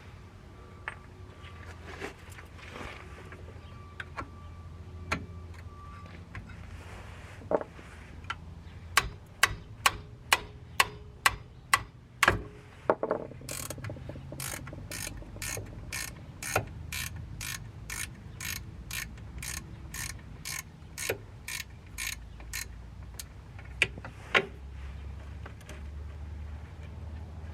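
Hand ratchet wrench clicking as it turns the 18 mm bolts of a car's rear hub bearing assembly. A few scattered clicks and knocks come first, then from about nine seconds in a steady run of sharp clicks at about two a second, loudest at first and then softer.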